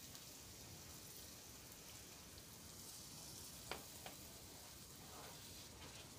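Faint, steady sizzle of a spiced masala paste in a frying pan, the hot oil spitting as a splash of water goes in. There are a couple of light clicks about midway through.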